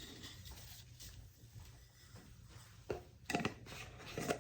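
Quiet kitchen with a low steady hum and a few short, sharp knocks near the end.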